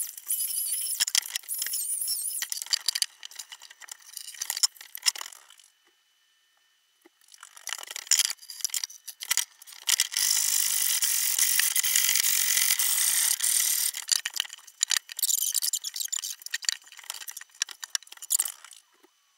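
Handling noise from fitting a small wooden cabinet door into its frame: intermittent scraping, rubbing and rustling with a few squeaks and light knocks. It stops briefly about six seconds in.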